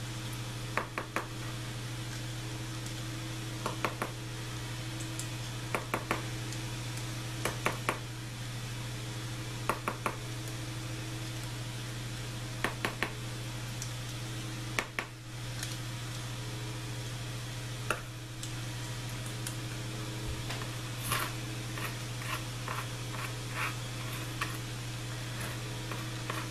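A steel hex key scraping and clicking against the aluminium sump of an ATV engine crankcase while metal debris from the engine is dug out, in short clicks often in pairs every couple of seconds, over a steady low hum.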